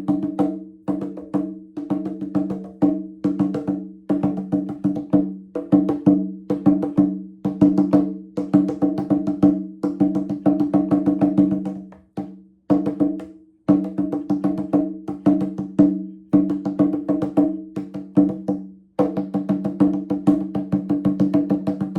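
Music played on a struck, pitched percussion instrument: quick runs of strokes ringing on a few low notes, with brief pauses about halfway through and a little before the end.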